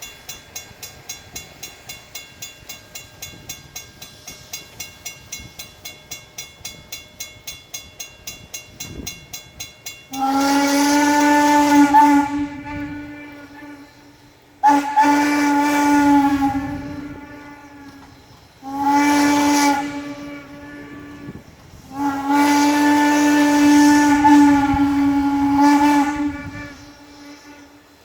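Steam locomotive whistle sounding the grade-crossing signal: two long blasts, a short one and a final long one. Before it, a bell rings steadily for about ten seconds at roughly three or four strokes a second.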